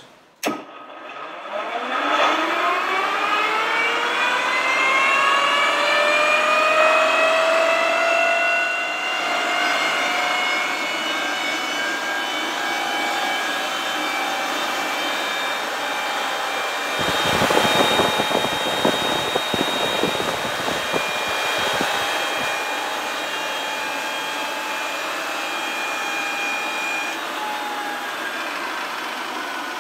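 A click, then a Rolls-Royce Dart turboprop being spun on its electric starter motor in a dry cycle, with no fuel or ignition: the compressors and turbine wind up in a whine of several rising tones over the first several seconds, then hold at a steady pitch. A rough, noisy stretch comes about seventeen seconds in and lasts a few seconds.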